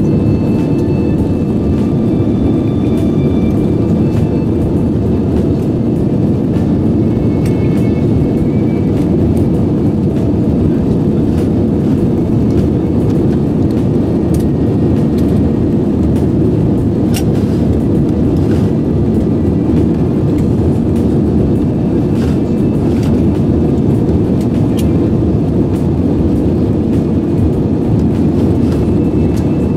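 Airbus A320 cabin noise: a steady low rumble of engines and airflow heard from inside the airliner.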